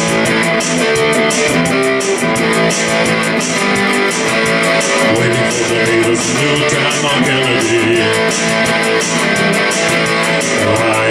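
Electric guitar strummed in a steady rhythm, playing the instrumental intro of a song.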